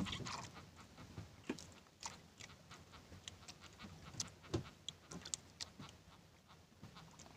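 Faint, irregular small clicks and rustles of hands working a hooked fish free of nylon fishing line and a swallowed hook.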